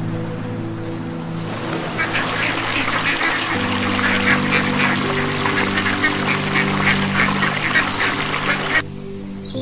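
A flock of mallards quacking rapidly and splashing on water over background music. The quacking starts about two seconds in, after a soft wash of water noise, and cuts off abruptly near the end.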